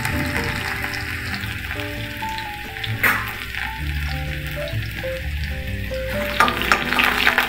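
Crushed garlic sizzling steadily in hot oil in a kadai, with a sharp knock about three seconds in. Near the end a slotted spoon stirs it with clicks and scrapes against the pan.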